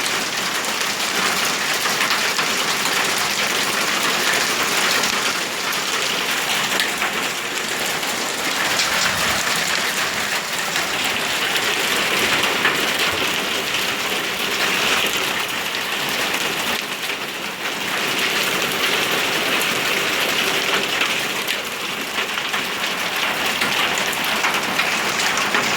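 Heavy hail pelting down on surfaces: a dense, steady clatter of countless small impacts.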